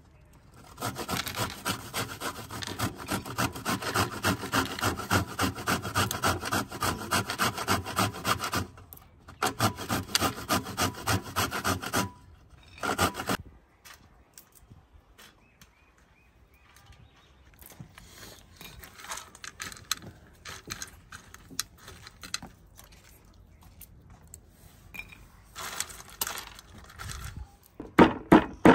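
Rhythmic rasping strokes of nuts being ground with a pestle in a stone mortar, about three strokes a second, for the first twelve seconds or so. After that comes a quieter stretch of scattered handling sounds. Near the end, louder and sharper pestle strokes start up.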